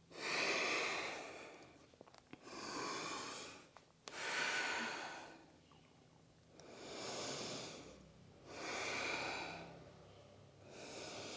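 A woman breathing slowly and deeply in and out, each breath a soft rush of air lasting about a second and a half, about six in all.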